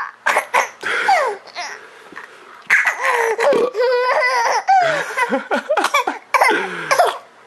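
A small child laughing and squealing in a string of short, high-pitched bursts.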